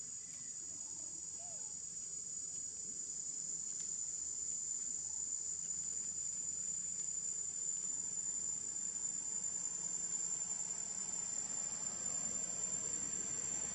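Steady, high-pitched drone of a chorus of insects, slowly growing a little louder.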